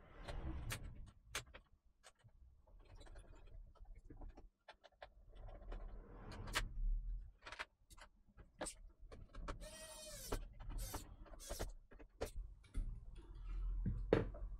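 Hands fitting an all-in-one liquid cooler's pump block onto the CPU inside a PC case: scattered clicks and knocks of plastic and metal parts, with a short squeak about ten seconds in.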